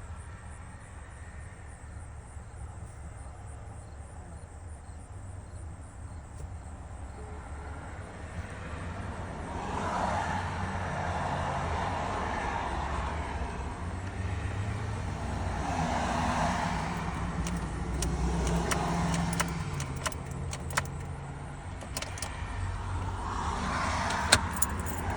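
Road vehicles going by, swelling and fading three times over a steady low rumble, with a scatter of sharp clicks in the second half.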